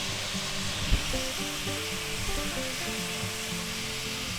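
Vegetables and noodles sizzling in oil in a hot cast iron skillet, with background music playing, and a short low knock about a second in.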